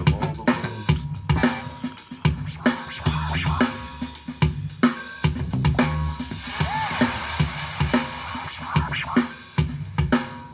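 Drum-driven music with heavy bass played through an XDOBO Vibe 50 W Bluetooth speaker, recorded raw off the speaker.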